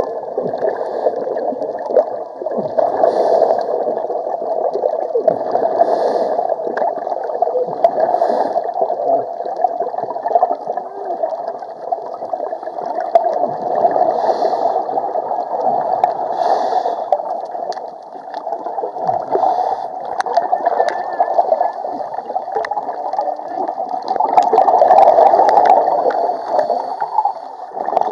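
Underwater gurgling and bubbling from a scuba diver's exhaled bubbles, muffled, with a brief surge every two to three seconds.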